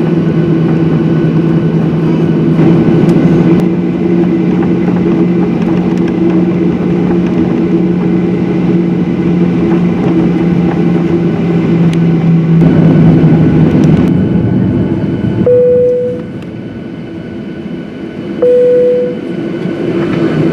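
Cabin noise of a Boeing 737-800 taxiing, its CFM56-7B engines running steadily as a low hum over a constant drone. Near the end the noise dips briefly and two short single-pitch tones sound about three seconds apart.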